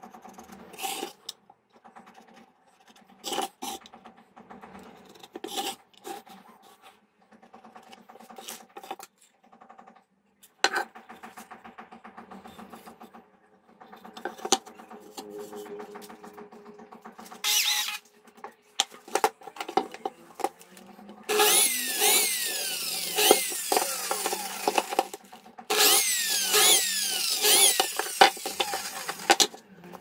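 Workshop work on wood: scattered knocks and clicks of handling, then two loud spells of harsh cutting or abrading noise from a tool working the wood, each about four seconds long, starting a little after twenty seconds in.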